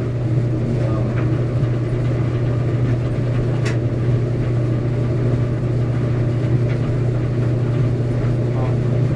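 Steady low mechanical hum, even and unbroken, with a single sharp click about three and a half seconds in.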